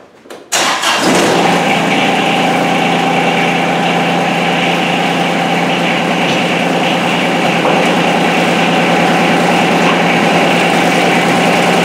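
John Deere 2305 compact tractor's three-cylinder diesel engine starting up: a few short clicks, then the engine catches about half a second in and runs steadily.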